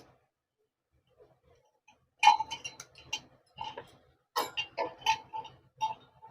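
Light metallic clicks and clinks from the motorcycle's loose clutch plates and steel plates being handled and knocking together. They start about two seconds in and come irregularly, a few a second.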